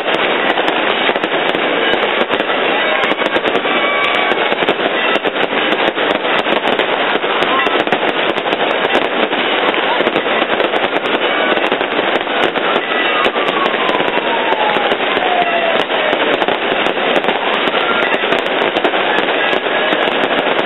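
Crackling firecrackers popping rapidly and without pause over the voices of a large crowd.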